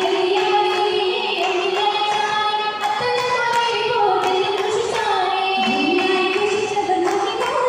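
A group of girls singing an Oppana song (Mappila song) together into microphones, in a wavering, melismatic melody. A few sharp hand claps from the dancers cut through the singing.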